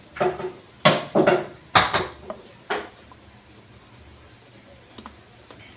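Pool cue striking the cue ball and billiard balls clacking together: a quick series of sharp clicks over about three seconds, then two faint ticks near the end.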